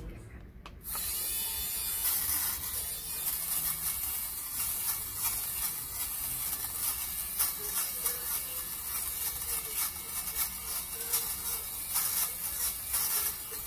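Xiaomi Mijia electric lint remover running over fleece fabric, starting about a second in: a steady electric-shaver-like whirr with many small crackling snips as its rotating blade cuts pills off the fabric.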